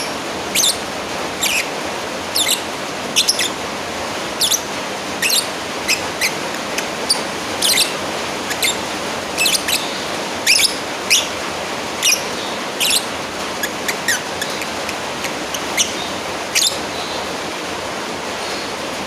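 Lovebird giving short, sharp, high-pitched chirps in quick succession, about one or two a second, as a call to a rival; the calls stop a couple of seconds before the end. A steady hiss lies under them throughout.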